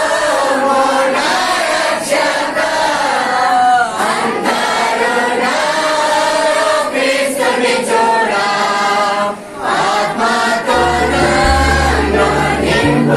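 A congregation of many voices singing together in worship. About eleven seconds in, a music track with a heavy deep bass comes in over the voices.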